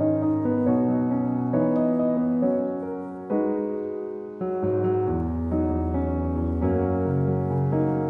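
Background piano music: slow, sustained notes and chords.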